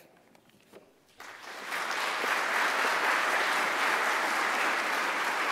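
Audience applauding: the clapping starts about a second in, quickly swells, and holds steady.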